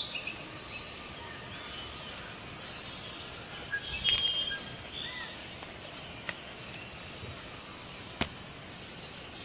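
Outdoor rural ambience: a steady high-pitched hum with a few short bird chirps and several faint clicks.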